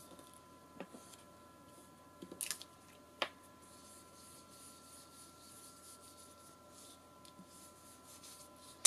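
Round foam ink-blending tool scuffing and swiping across the edges of a paper tag, inking them: soft, scratchy brushing with a few short sharp swipes or taps in the first few seconds, over a faint steady hum.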